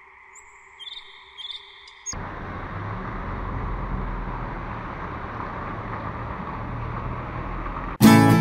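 Quiet steady electronic tones with two short high beeps, cut off about two seconds in by steady outdoor street noise with a low rumble of traffic. Loud strummed acoustic guitar music starts abruptly near the end.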